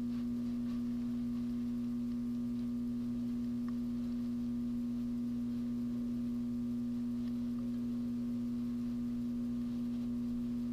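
Steady electrical hum from the hot-wire foam cutter's 12.6 V transformer and dimmer while it powers the red-hot nichrome wire. There are a few faint ticks.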